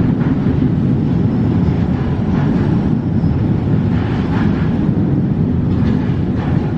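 Sleeper train running: a steady low rumble of the wheels on the rails, with a few faint knocks spread through it.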